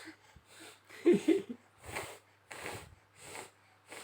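A young child with a cough and cold blowing air out through her nose in short repeated puffs, about one every 0.7 seconds, with a brief whimpering voice about a second in.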